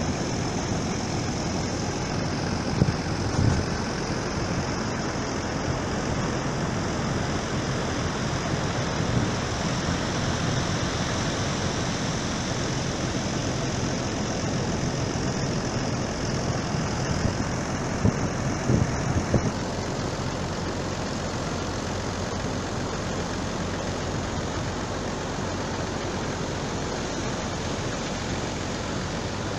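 An engine running steadily under an even rushing noise, with a few short knocks about 3 seconds in and again around 18 to 19 seconds.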